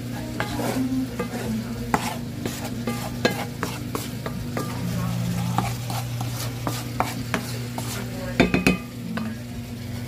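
Cooking sounds at the stove: a wooden spoon stirring caramelizing carrot slices in a sizzling frying pan, and a potato masher working mashed potatoes in a steel pot. Many small clicks and knocks run throughout, with a cluster of louder knocks near the end, over a steady low hum.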